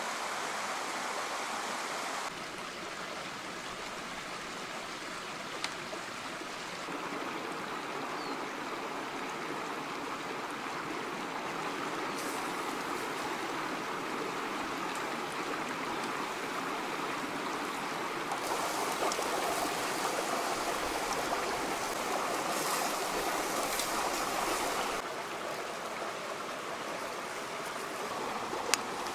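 Shallow rocky mountain stream running and splashing over stones in a steady rush, its level stepping up and down several times.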